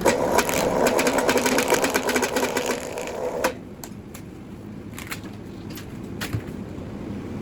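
Vevor wire stripper running with a fast, rattling clatter as heavy 350 kcmil copper cable is fed through and its insulation sliced. It stops abruptly about three and a half seconds in, followed by a few scattered clicks and knocks.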